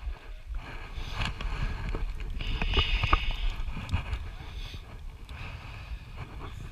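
Rumble of wind and handling on a body-worn camera's microphone, with a few sharp metal clicks of a steel safety carabiner against the belay cable, bunched in the middle.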